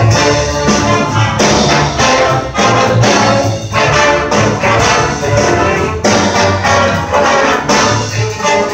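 School jazz big band playing a loud full-ensemble passage: trumpets, trombones and saxophones over piano, guitar and a walking upright bass line.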